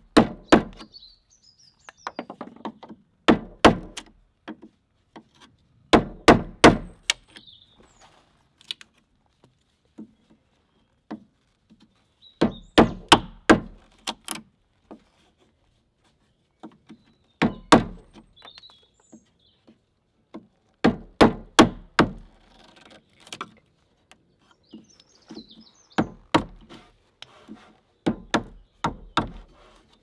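A wooden stick batoning a bushcraft knife into a timber beam to cut notches: bursts of several quick, sharp wooden knocks, with short pauses between the bursts.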